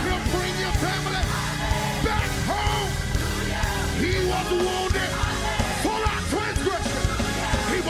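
Live gospel praise music from a church choir and band: an up-tempo, steady drum beat and bass under the choir's voices.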